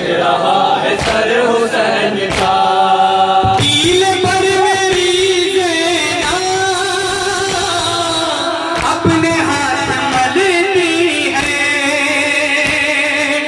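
Male reciter's amplified voice chanting a noha, an Urdu lament, in long wavering held lines, with other men's voices joining in. A few sharp slaps from chest-beating (matam) cut in.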